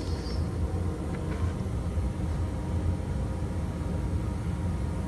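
Machine tool running steadily while hogging out the center of a piece of aluminum, mostly a low hum with a few faint steady tones above it.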